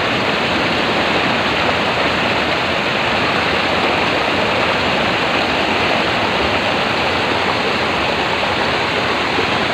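River water rushing and splashing steadily over and through the bamboo slats of a bidai fish trap, a loud, even rush that never lets up.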